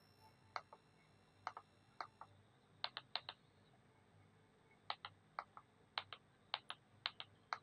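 Faint clicks of remote control buttons being pressed about eleven times at irregular intervals, each press a quick double click, as the TV's memory-card menu is stepped through to start a video.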